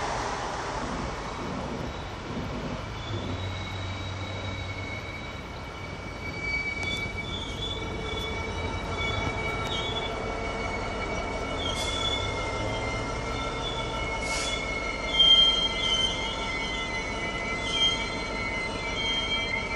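Freight train behind an EWS Class 66 diesel locomotive running slowly past, its wheels squealing on the rails in several steady high-pitched tones, with two sharper, louder squeals near the end. A low drone sits underneath, and at the start the noise of a passing passenger train fades away.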